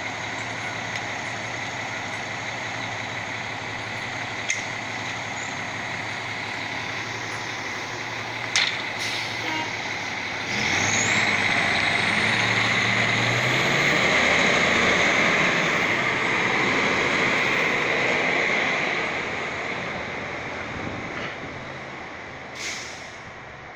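2006 E-One Typhoon fire engine's diesel engine idling, with a short sharp burst of air about a third of the way in as the air brakes release. Just under halfway through, the engine revs up and gets louder as the truck pulls away past the microphone. Its sound fades over the last few seconds.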